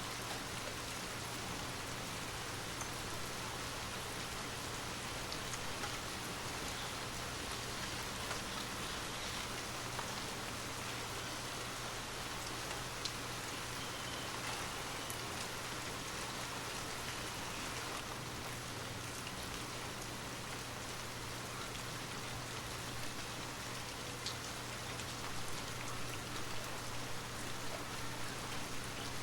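Steady rain falling, an even hiss with scattered faint drop ticks, over a low steady hum.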